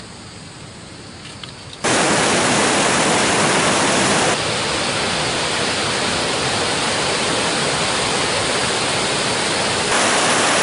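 Loud, steady rush of a fast mountain stream pouring over rocks and small cascades. It comes in abruptly about two seconds in and steps slightly quieter, then louder again near the end, at cuts between shots. Before it there is a faint hiss with a few soft clicks.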